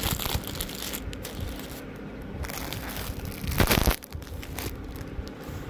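Clear plastic packaging around folded suits crinkling and rustling as the packets are handled, with a louder crackle a little past halfway.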